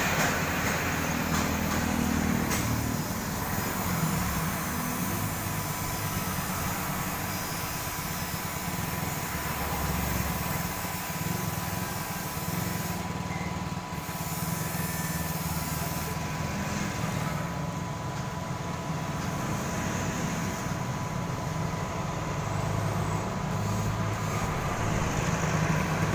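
Road traffic, vehicle engines running and passing. Near the end an ATV's engine grows louder as it approaches.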